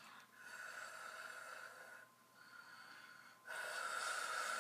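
A person breathing heavily through the nose while blowing a big bubble gum bubble: two long, soft breaths, the second one louder and starting about three and a half seconds in.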